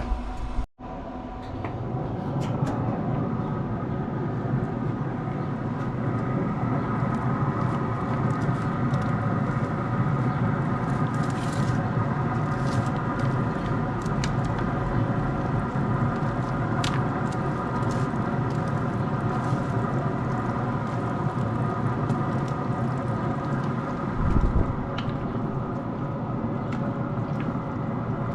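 Steady machine hum with a low rumble, holding the same set of tones throughout; a low thump about 24 seconds in.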